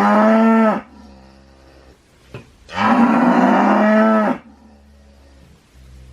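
Cow mooing twice: the end of one moo in the first second, then a second full moo of about a second and a half, each dropping in pitch as it ends.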